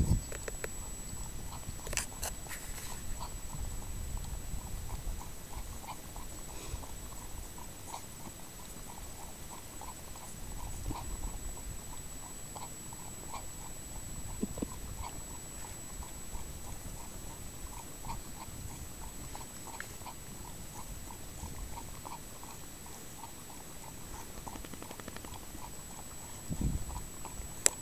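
A dog lapping water from a plastic bowl, a long run of quick, regular laps.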